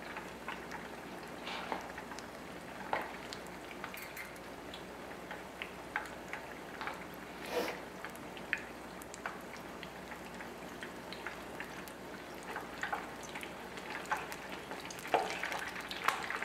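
Beer-battered zucchini blossoms frying in olive oil in a shallow pan: a steady sizzle with scattered crackles and pops. Near the end the frying gets louder and busier as a fork turns the blossoms in the oil.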